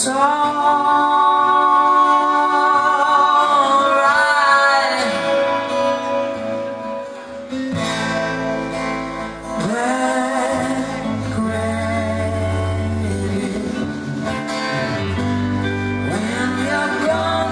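Live band playing a song: long, wavering sung notes over guitars, with bass and drums coming in about eight seconds in.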